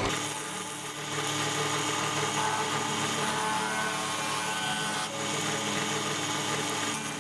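A bench-top machine tool's electric motor running steadily with a whine, as in machining on a mini lathe or mini mill, with short dips about one second and about five seconds in.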